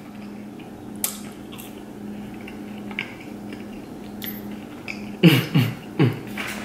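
Close-miked chewing of fast food, with a few faint soft clicks. About five seconds in come three or four short, louder sounds that each drop sharply in pitch.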